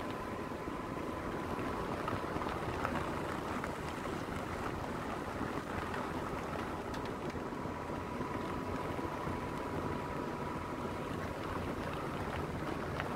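Vehicle driving along a dirt road, with a steady low rumble of engine and tyres on gravel and a faint steady whine over it.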